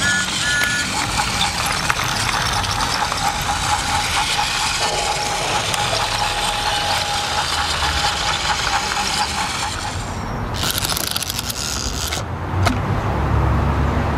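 Battery-powered Talking Thomas TrackMaster toy engine running on plastic track: the small motor whirs with a steady thin whine and the wheels rattle on the track joints. The whine stops about ten seconds in, followed by a short run of rapid clicks.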